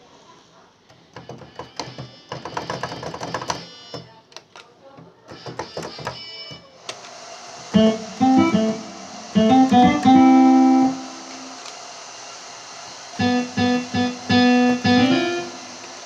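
Korg X3 synthesizer keyboard playing short phrases on one of its General MIDI sounds: quick, quiet notes at first, then louder held notes in two groups. A steady hiss comes in under the notes about seven seconds in.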